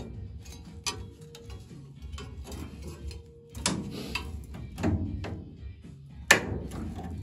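Spot welds on a Ford Cortina Mk3's rusty steel inner sill giving way as the panel is levered off the floor pan: a series of sharp metallic knocks and cracks, the loudest about six seconds in.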